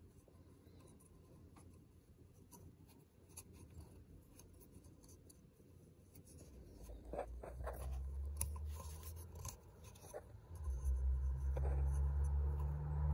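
Small handling sounds as a rubber gasket is worked onto an oil filter housing cap by hand: faint clicks and rubbing. About halfway in, a low steady hum comes in and becomes the loudest sound, briefly dipping before it returns.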